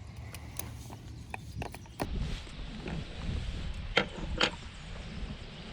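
Small clicks and knocks of a fish and tackle being handled in a kayak, with two louder, sharper knocks about half a second apart near the end.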